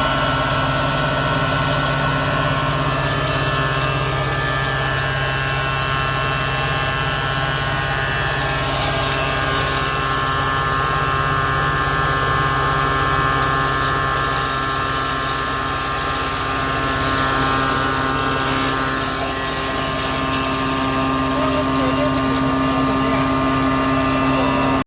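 Electric grain grinder machine running steadily under power, a loud constant hum with a high whine held over it.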